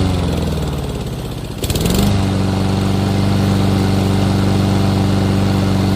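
Honda GCV170 single-cylinder lawn mower engine running steadily; about a second in its speed sags and it slows, a short rattle sounds, and it picks back up to a steady run.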